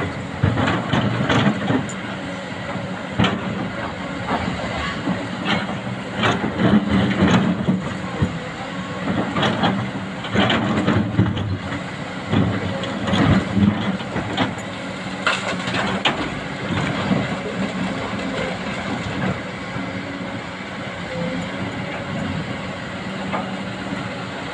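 Excavator's diesel engine running steadily under load, with irregular metallic clanks and knocks over the first two-thirds, then a steadier run near the end.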